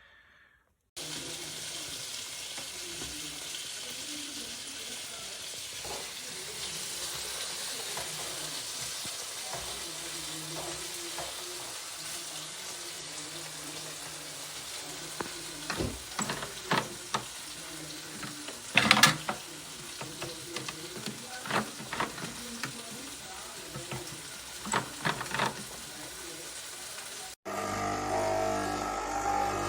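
Swan retro pump espresso machine running broken, with a steady hiss and, in the second half, irregular clicks and knocks, the loudest about two-thirds of the way through. It is failing and leaking water from its base, making far more noise than it is meant to.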